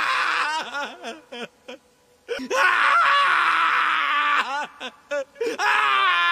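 A young man screaming and wailing in anguish: long drawn-out cries in three waves, broken by short gasping sobs and a brief silent pause.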